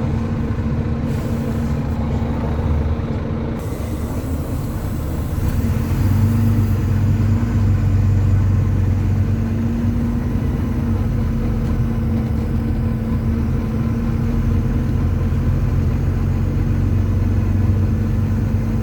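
Volvo B9TL double-decker bus's diesel engine running under way, heard from on board as a steady drone. About six seconds in it grows louder, with a strong low hum.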